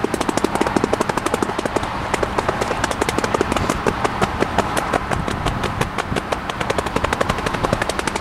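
Wheels of a passing Norfolk Southern freight train clattering over the rail joints: a rapid, uneven run of sharp clicks, many a second, over the steady rumble of the cars rolling by.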